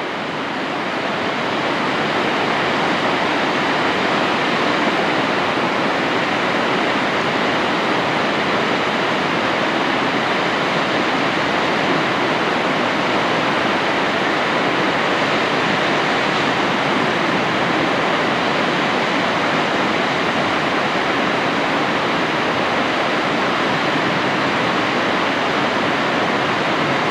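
San Antonio Falls running at unusually high flow: a steady rush of water pouring down the rock face and splashing onto the stones at its foot. The rush swells over the first couple of seconds, then holds steady.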